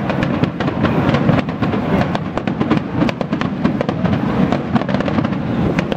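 Aerial fireworks going off, with many sharp crackles and pops in quick, irregular succession.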